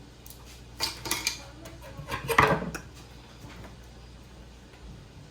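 Lemon pepper seasoning container being worked open with a knife: a few sharp clicks about a second in, then a louder clattering scrape of blade on plastic a little after two seconds.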